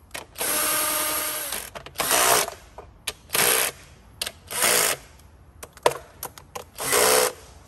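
Cordless power screwdriver whirring in five short bursts as it spins the plastic valve cover's bolts down, the first burst the longest, with sharp clicks from the tool and bolts between runs.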